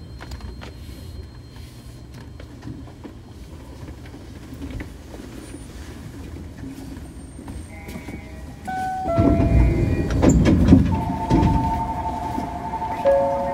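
Osaka Monorail 2000-series train running, a steady low rumble. About eight seconds in, a whine from its drive comes in as short tones stepping down in pitch. The rumble then grows louder, and the whine settles into two steady tones near the end.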